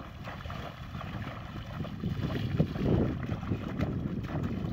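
Shallow muddy water splashing and sloshing as a woven bamboo basket is swept and pushed through it, with wading legs churning the water; the splashing grows louder about two seconds in.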